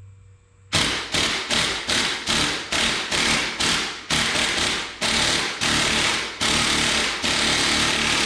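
Impact wrench hammering in short trigger bursts, about two a second, with longer bursts near the end, starting just under a second in. It is driving a two-jaw puller's screw to ease a part off the front of an IH Cub engine.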